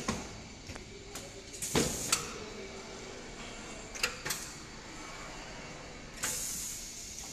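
High-frequency PVC welding machine working through its cycle: the pneumatic press head and sliding tray knock several times, in pairs about 2 s and 4 s in, with sharp hisses of air venting from the cylinders about 2 s and 6 s in.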